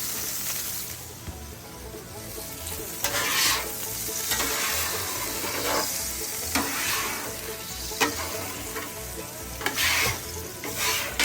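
Water sizzling and boiling on the hot steel cooktop of a Blackstone griddle, with several short scrapes of a metal scraper across the surface. The boiling water is lifting cooked-on residue as the griddle is cleaned.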